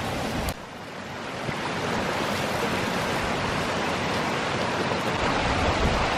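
Shallow mountain stream rushing over rocks, a steady wash of running water. About half a second in, a brief crackling sizzle of meat roasting under a hot stone slab cuts off before the water sound rises.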